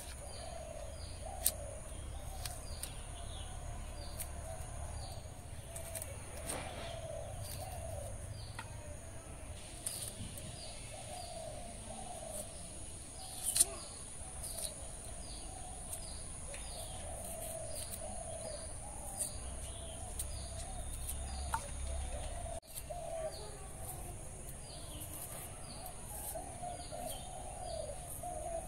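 Outdoor birdsong: birds chirping and warbling, one repeating a short falling high chirp about once a second. A few sharp clicks come from cutting small onions on a boti blade, the loudest about halfway through.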